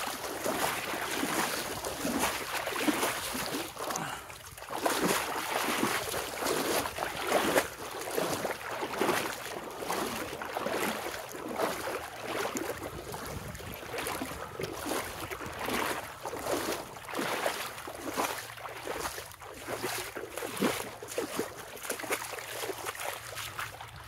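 Fast, flooded river water rushing and splashing close to the microphone, with irregular surges of splashing as a person swims and wades across the current.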